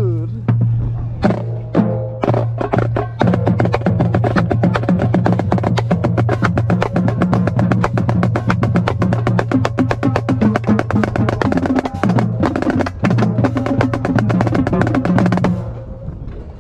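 Marching snare drum played fast, with dense rolls and sharp rim clicks, over recorded music that has a steady bass line. The drumming and music drop off shortly before the end.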